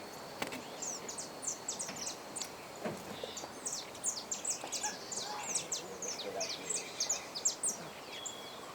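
Small birds chirping: many short, high chirps in quick succession, overlapping one another.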